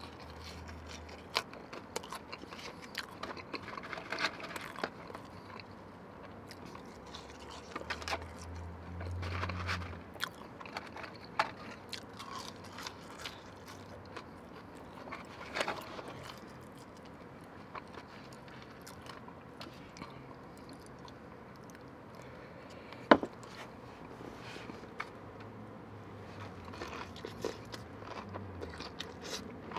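Close-up eating sounds: chewing and biting into fried chicken tenders, with wet mouth and finger-licking clicks. A single sharp click stands out about 23 seconds in.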